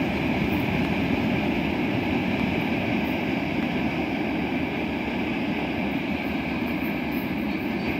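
Train rolling past on the rails: a steady rumble of wheels on track with a steady high ring above it, easing off a little toward the end.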